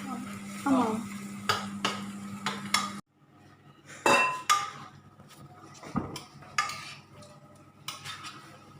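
A metal spoon or spatula knocking and scraping in a pan of frying papaya flowers and sardines, over a steady sizzle that cuts off suddenly about three seconds in. After that come scattered clinks and knocks of utensils against pots and dishes.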